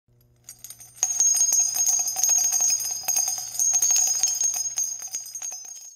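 Small bells jingling in a dense, shimmering rattle over a steady high ring. It starts about a second in, fades over the last couple of seconds, and cuts off suddenly.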